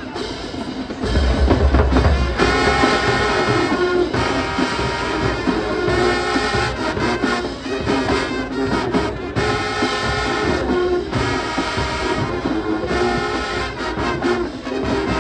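High school marching band playing: brass and drums come in with a loud hit about a second in, then hold full sustained brass chords.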